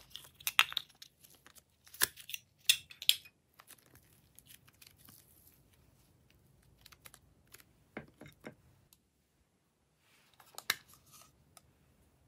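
Hands handling small plastic containers and slime, making crisp plastic clicks and crackles in short clusters. The clusters are loudest in the first three seconds, a few more crackles come about eight seconds in, and there is a sharp click near eleven seconds.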